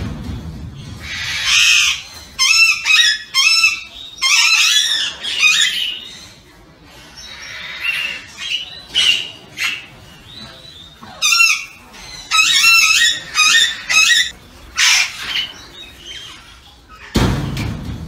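Alexandrine parakeets in a flock giving harsh, repeated squawking calls in quick runs separated by short pauses. A low rumble sounds at the start and again near the end.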